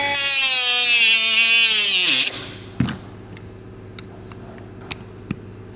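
Small handheld electric power tool sawing into the housing of a tailgate soft-close latch: a high motor whine with loud cutting hiss, its pitch sagging slightly under load. A little after two seconds in the tool is switched off and winds down, and a few light clicks follow.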